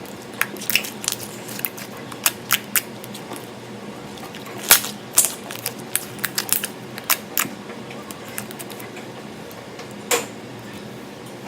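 Slime and kinetic sand being worked by hand or stirred, giving irregular short squishing clicks and pops. They come thickly for the first seven or so seconds, with one louder pop near the end, over a steady low hum.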